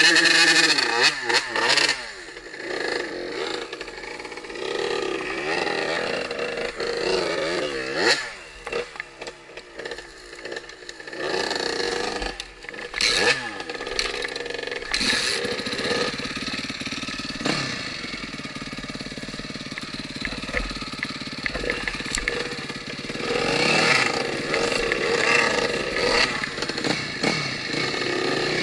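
Dirt bike engines revving up and down in repeated bursts, the bikes working hard on a steep, technical climb. Steadier low running in between.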